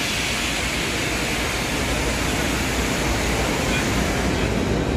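Machinery exhibition hall noise: a steady hiss over a constant low hum, with the hiss cutting off near the end.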